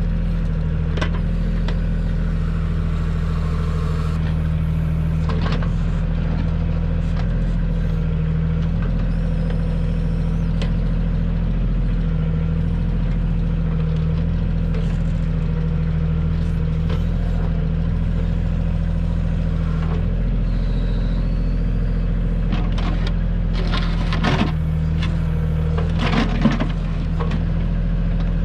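Kioti tractor's diesel engine running steadily while working the backhoe, with a few sharp knocks near the end.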